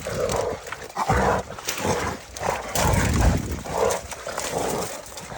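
Hog-hunting dogs barking repeatedly in short bursts, with low thumps and rumble underneath.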